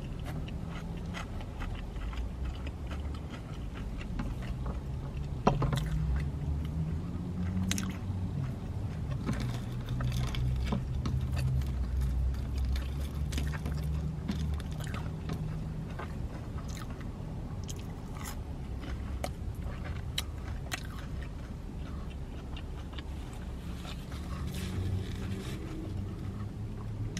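Close chewing and biting of a crispy chicken sandwich, with many small crunches and clicks, over a low steady hum.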